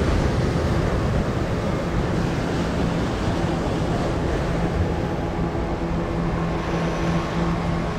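Wind buffeting the microphone over sea waves washing against the breakwater's boulders, a steady rough rush with a faint low drone underneath.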